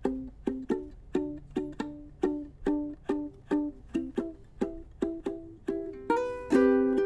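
Islander MCB-4 ukulele played fingerstyle: a steady run of single picked notes, then a chord strummed and left ringing about six seconds in.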